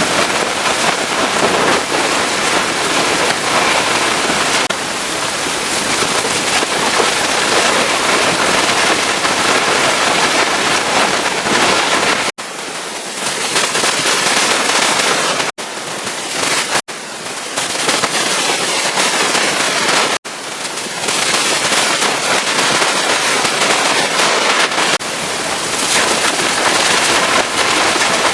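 High-pressure water spray from a pressure washer blasting against the truck, a loud, dense, crackling hiss. It is broken by four brief, sudden dropouts in the middle stretch.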